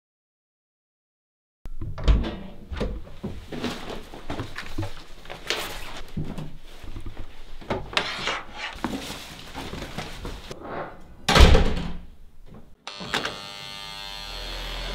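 A rapid string of knocks and bumps, then a door thunk about eleven seconds in, the loudest sound. Near the end a steady hum with several tones sets in.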